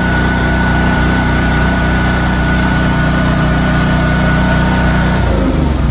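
Philking PK160A inverter welding generator's engine running steadily, with a thin high steady whine over it. A little past five seconds in the whine stops and the engine note changes.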